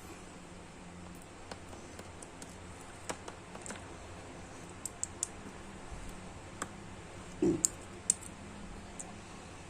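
Irregular sharp clicks and light taps of small hard plastic parts being handled while an action figure is taken apart. About seven and a half seconds in comes a duller knock, followed by two louder clicks.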